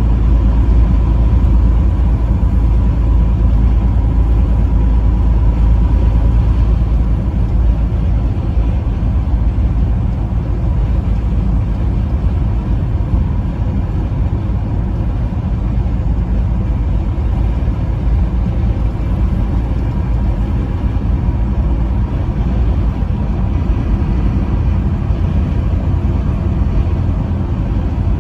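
Truck driving at highway speed: a steady, loud, low rumble of engine and road noise.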